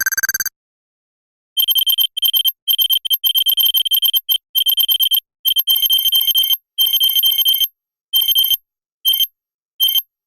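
Synthesised 'binary code' digital typing sound effect: rapid strings of short electronic beeps at one high pitch, coming in bursts with dead-silent gaps between them. The bursts are dense through the middle and thin out to a few short groups near the end.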